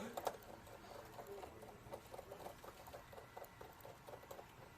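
Faint, irregular small clicks and taps, several a second, with a slightly louder click just after the start.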